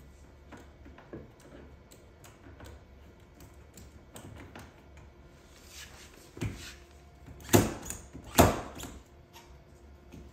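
Metal espresso tools, a tamper and a stainless portafilter, being handled on a stone countertop: light clicks and scrapes, then three sharp knocks about six and a half, seven and a half and eight and a half seconds in, the last two the loudest.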